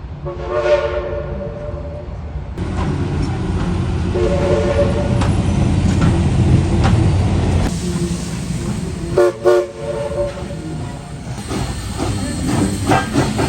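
Southern Railway 4501's Princeton three-chime steam whistle blowing a chord: a long blast about a second in, another around four seconds, then a few short toots near ten seconds. Under it, from about two and a half seconds in, a steady low rumble of the train running.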